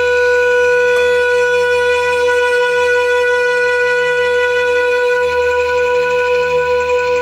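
Solo saxophone holding a single long note, steady in pitch, wavering slightly in loudness near the end.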